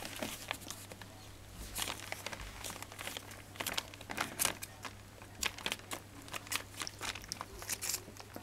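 Newspaper crinkling and rustling under the paws of Welsh springer spaniel puppies as they clamber over it, in irregular crackles.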